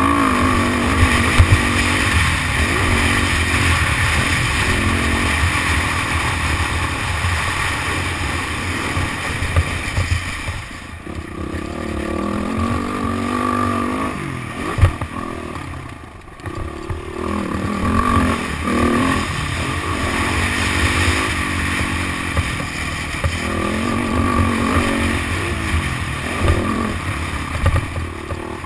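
Motocross dirt bike engine revving up and falling off again and again as the rider works the throttle, with the engine dropping off briefly about eleven and sixteen seconds in. A single sharp knock stands out near fifteen seconds.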